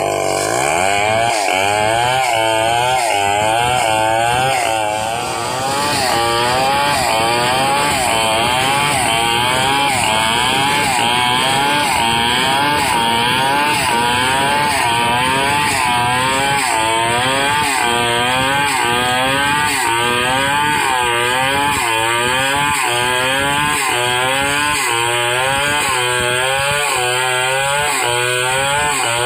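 Stihl 070 two-stroke chainsaw running at full throttle while ripping a log lengthwise. Its engine pitch rises and falls in a steady rhythm, about once every three-quarters of a second, as the bar is pushed through the wood. There is a short dip in loudness about five seconds in.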